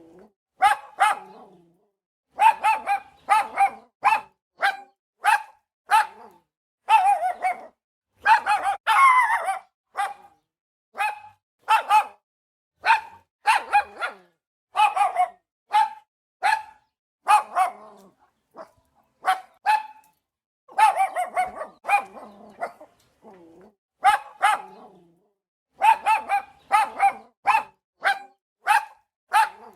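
A dog barking over and over in short bursts of two to four sharp barks, at much the same pitch each time, with brief pauses between bursts.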